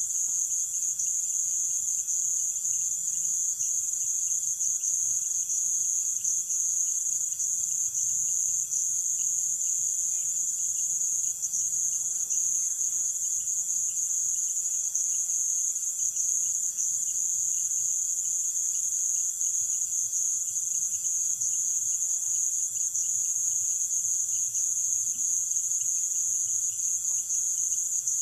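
Dense, steady chorus of Amazonian night-calling insects: a continuous high-pitched trill with a fainter, finely pulsing trill lower down.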